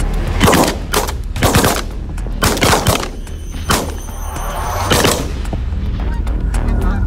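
A volley of shotgun shots, about seven in the first five seconds, fired by several hunters in quick, irregular succession at geese passing overhead, each shot with a short echo after it.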